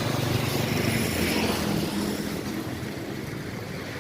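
A motor vehicle engine humming, fading away after about two seconds, over a steady rushing of wind and road noise.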